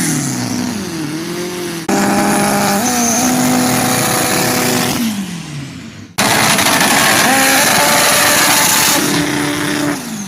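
Turbocharged drag cars' engines revving hard during burnouts, in three edited clips. In each clip the pitch holds high and then falls as the throttle is lifted. A steady hiss rides over the engine sound.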